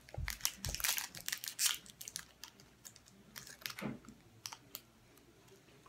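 Small sharp clicks and crackles of a candy and its plastic packaging being handled, densest in the first two seconds and then sparser and quieter.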